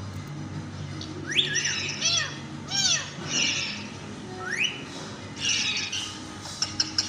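A parrot giving a string of short, shrill calls, about seven, each rising or arching in pitch, with a few sharp clicks near the end.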